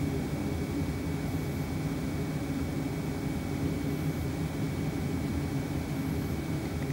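Webasto D3WZ diesel auxiliary heater of a VW Sharan 1.9 TDI running as a parking heater with the engine off, heard inside the cabin: a steady low hum with an even rush of air and a faint steady high whine.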